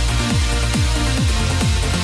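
Trance music with a steady, driving kick-drum beat.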